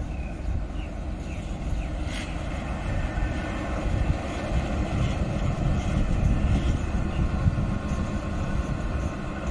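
Diesel-electric locomotive engine running with a steady low rumble as the light engine moves along the tracks.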